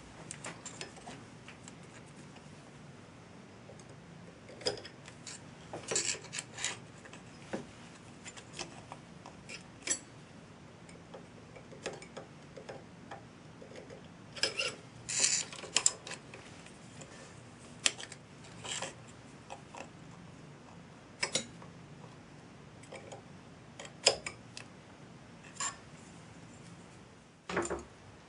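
Light, irregular metallic clicks and short scratches of a steel scriber and hand tools on metal, as the scriber is run along the lathe chuck jaws to mark an aluminium pulley. The denser scratching comes in clusters about six and fifteen seconds in.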